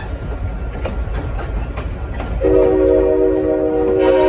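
Passenger train rolling, its wheels clicking over rail joints about two or three times a second. About halfway through, a Nathan K5L five-chime air horn starts a long blast, a steady chord of several notes that is the loudest sound.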